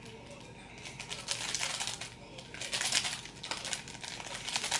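Fingers working at a small plastic glitter container to open it: bursts of crinkling and quick clicking, in three clusters, the loudest about three seconds in.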